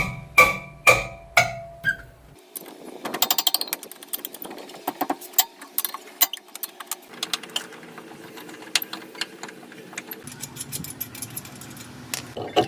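Wheel-nut wrench clinking on a car's front wheel nuts as they are loosened, with sharp ringing metal clinks in the first two seconds. A quick rattling run of clicks follows about three seconds in, then quieter knocks and metal handling.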